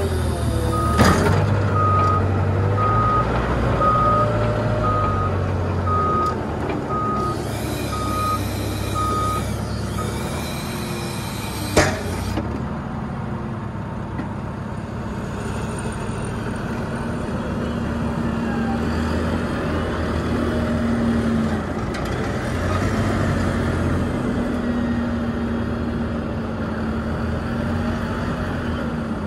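Engine of a plowing machine running steadily while a reversing alarm beeps about one and a half times a second for the first ten seconds. Sharp knocks come about a second in and again near twelve seconds, the second one the loudest sound.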